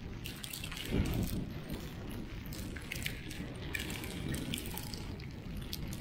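Snowstorm wind buffeting the microphone in a steady rumble that swells about a second in, with scattered sharp crackles and clicks over it.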